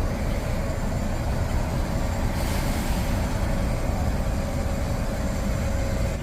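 Steady road and engine noise of a car being driven, a constant low rumble with a faint steady hum.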